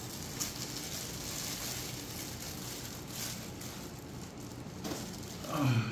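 Clear plastic bag crinkling and rustling as it is handled and pulled open.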